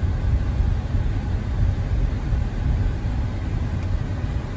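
Car driving slowly, a steady low rumble of engine and road noise heard from inside the cabin.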